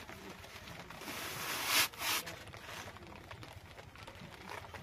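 Rustling of a new saree being taken out and unfolded: a swish that builds to a peak a little before two seconds in, then a shorter one.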